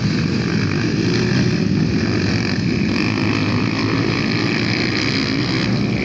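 A pack of 150 cc dirt bikes making a holeshot start, their engines running hard together as they accelerate off the line in a steady, continuous din.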